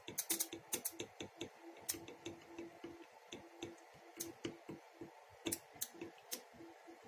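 Spark plugs on a VW four-tower ignition coil pack snapping as they spark on the bench, one spark each time the test lamp touches the trigger pin: faint, irregular sharp clicks, some louder than others. Each snap shows that the tower is firing.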